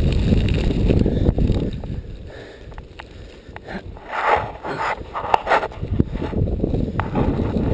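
Someone wading through deep, drifted snow: crunching steps and rustling over a low rumble on the microphone, with two louder crunches about four and five seconds in.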